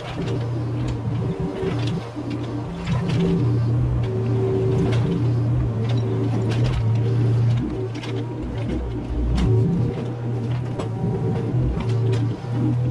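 Mini excavator's diesel engine running steadily while it works, with scattered knocks and clanks from the machine and debris.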